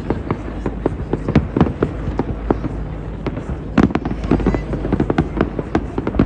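Aerial fireworks bursting: a fast, irregular string of bangs and crackles, the loudest bang about four seconds in.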